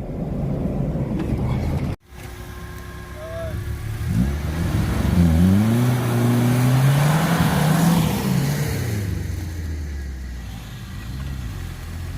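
An off-road 4x4's engine revs up, rising in pitch for several seconds, then eases off and falls away.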